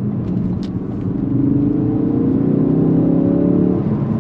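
Ford Focus RS Mk3's 2.3-litre turbocharged four-cylinder accelerating, heard from inside the cabin. The engine note rises steadily from about a second in and drops away near the end, over a steady rumble of road noise.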